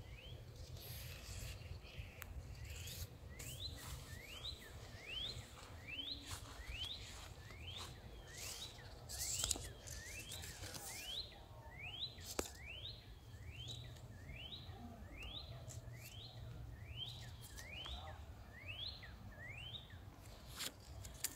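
A bird repeating a quick rising whistled note about one and a half times a second, with a short break partway through. Brief rustles and knocks, the loudest about nine seconds in, come from leaves being handled.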